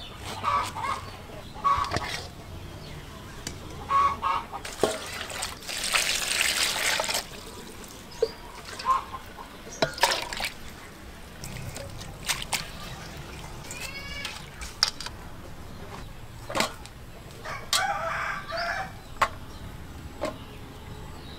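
Knife clicking through enoki mushroom stems on a wooden board and water splashing as the mushrooms are rinsed in a steel bowl, with chickens clucking in the background and a longer call, likely a rooster crowing, near the end.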